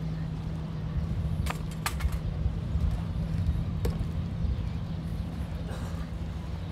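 A steady low motor hum with a rumble beneath it. A few sharp clicks come about one and a half, two and four seconds in.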